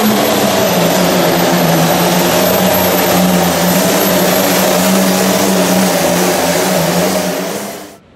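Red International pulling tractor's engine running at full throttle as it drags the weight sled down the track, a loud steady drone that cuts off abruptly near the end.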